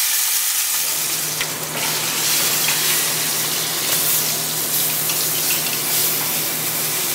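Whole chicken searing in smoking-hot olive oil in the bottom of a pressure cooker pot: a loud, steady sizzle.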